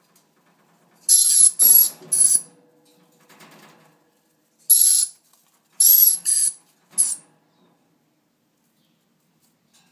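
Dusky lory giving short, harsh screeches: three in quick succession, then four more after a pause of about two seconds.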